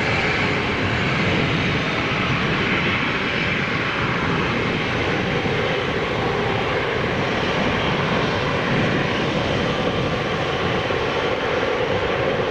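GE90 turbofan engines of a Boeing 777 freighter running loudly and steadily as the jet passes close by.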